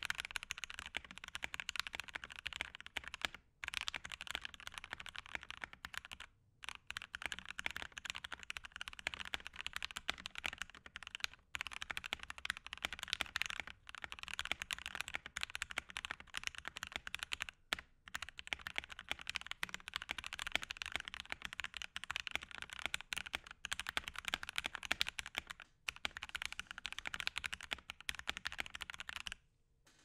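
Continuous typing on a Gentleman65 custom mechanical keyboard with an acrylic plate, lubed Gateron Red Ink V2 linear switches and GMK Cherry-profile ABS keycaps. A dense run of keystrokes is broken by a few brief pauses and stops just before the end.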